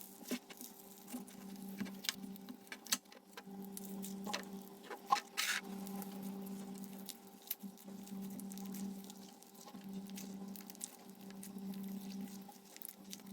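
Hands pressing, poking and stretching soft marshmallow clay slime, giving scattered sticky clicks and crackles, with a short hissy stretch about five and a half seconds in, over a steady low hum.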